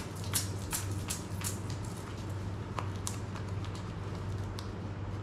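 Light clicks and rattles, about three a second, thinning out after about two seconds into a few scattered ones, over a steady low hum: tools knocking about in a belt pouch as the wearer moves.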